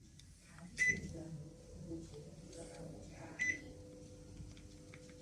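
Two short electronic beeps from the Panasonic CS-KC5HKJ air conditioner's indoor unit, about two and a half seconds apart, as it takes commands from the remote. A low rumble runs throughout, and a steady hum comes in about halfway.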